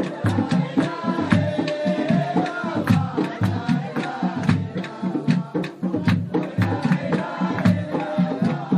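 Music: voices singing a melody over frequent drum beats.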